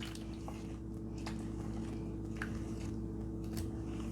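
Thick pounded-yam flour dough being stirred and turned in a bowl: soft, faint squishing with a few light clicks of the utensil against the bowl, over a steady low hum.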